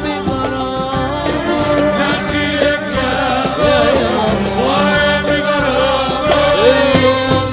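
Arabic dance song in Middle Eastern style. A steady drum beat runs under a lead melody full of sliding ornaments.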